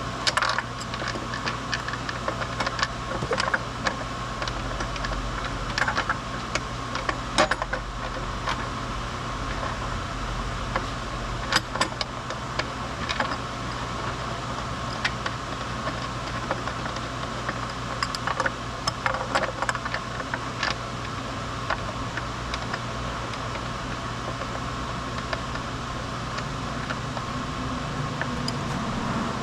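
Irregular light clicks and taps of hand tools and small metal parts being handled, over a steady mechanical hum.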